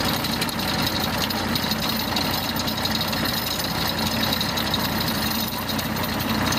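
Vintage tractor engine running steadily while the tractor pulls a rear-mounted tillage implement through soil.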